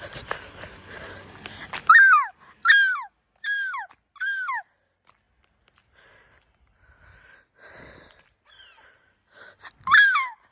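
Gull calling: four loud downward-sliding yelping calls a little under a second apart, then one more near the end.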